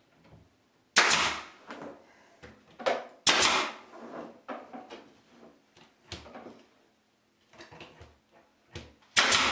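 Pneumatic brad nailer firing brad nails into a wooden trim frame: a few separate sharp shots, the loudest about a second in, around three and a half seconds in and near the end, with lighter knocks between.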